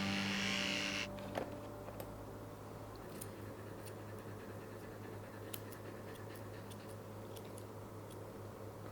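Electric dog clippers buzzing, switched off about a second in. After that, a low steady hum with a few faint scattered clicks.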